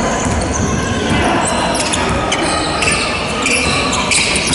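Basketball game in a large echoing gym: the ball bouncing and players running on the hardwood court, with short high sneaker squeaks near the end.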